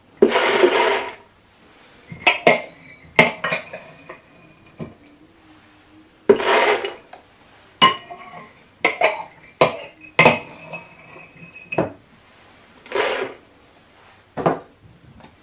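Soaked split chickpeas (chana dal) poured into a blender jug in three rushing pours, about six seconds apart. Between the pours a spoon clinks and scrapes against the glass bowl.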